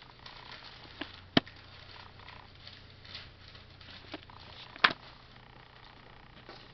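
Pages of a thick paper shop manual being turned by hand, with soft rustling and sharp paper snaps. A strong snap comes about a second and a half in and the loudest near five seconds, with fainter ones before each.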